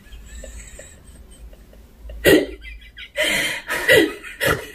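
A person spluttering: after a quiet stretch, a sudden loud breathy burst comes about two seconds in, followed by more bursts near the end.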